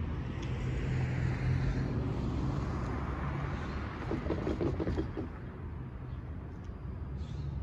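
A van driving over a railroad crossing, its tyres knocking over the rails in a quick cluster of thuds about four seconds in, with a steady low hum underneath.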